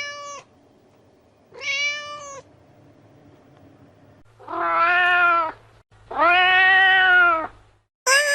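Domestic cats meowing: a couple of short, higher-pitched meows, then two longer, louder and lower meows, and another meow starting near the end.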